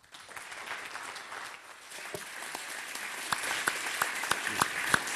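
Audience applauding. The applause swells over the first few seconds, and single sharp claps stand out from about three seconds in.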